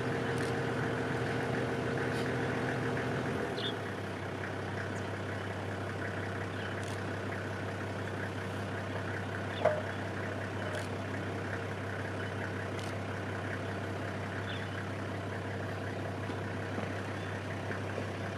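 An engine running steadily, easing off a little about four seconds in, with one sharp knock near the middle.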